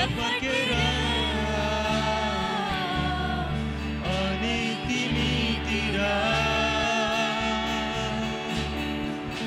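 Worship song: voices singing a slow melody over steady, sustained low bass notes.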